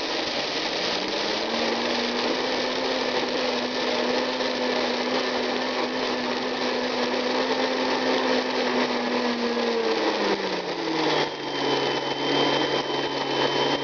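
Blendtec blender grinding a dry mix of whole grains and seeds, its motor running steadily with a rattling grind. It speeds up in the first second or so, then drops to a lower pitch about ten seconds in, after which a thin high whine joins it.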